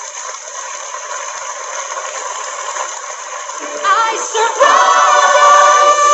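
Unaccompanied choir singing: voices swell in about four seconds in and hold long, sustained notes.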